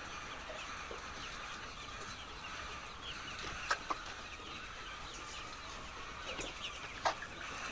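A large flock of laying hens clucking and calling all at once, a dense steady chatter, with a few louder single calls standing out about halfway through and near the end.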